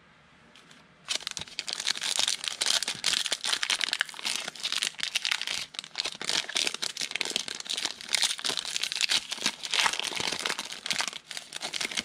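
A trading-card pack's wrapper being torn open and crinkled by hand, with dense crackling that starts about a second in and runs for some ten seconds.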